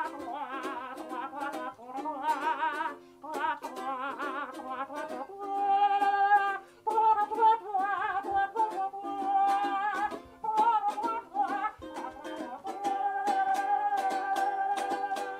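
Low-down dirty mouth trumpet: a voice imitating a trumpet through cupped hands, playing a bluesy melody with a wide wobbling vibrato and, later, long held notes. A strummed ukulele accompanies it.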